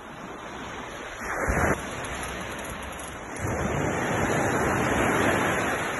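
Surf washing on the shore with wind buffeting the microphone, a steady rushing noise. It has a brief louder surge about a second and a half in, and grows louder again from about three and a half seconds.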